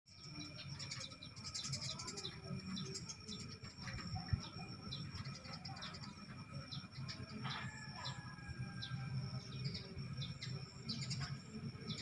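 Eurasian tree sparrows chirping in quick, short, falling calls, over a steady high-pitched whine and a low rumble, with a single sharp tap about four seconds in.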